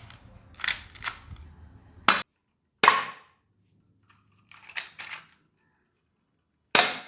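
A series of sharp gunshot-like cracks, about seven in all, some in quick pairs, each dying away quickly, with dead silence between groups.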